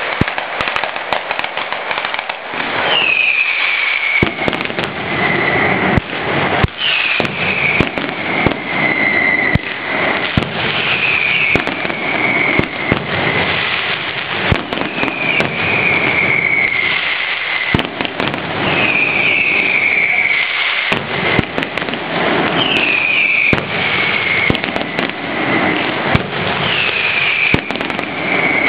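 Mascletà firecrackers going off in a dense, continuous barrage of bangs and crackling. A high whistle that falls in pitch sounds over it about every four seconds.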